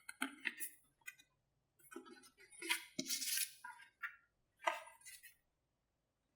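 Tapping and handling of a ZUS All Day Cup tumbler: a series of short, sharp taps and clinks, some ringing briefly, with a longer rasping noise about three seconds in.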